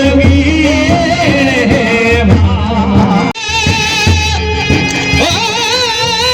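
Rajasthani folk music: a singer holds long, wavering notes over a steady low drum beat. It breaks off abruptly about halfway through and picks up again on a new held phrase.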